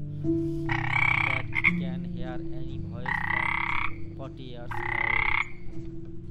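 A frog croaking: three calls, each a fast rattling pulse lasting up to about a second, with gaps of a second or so between them.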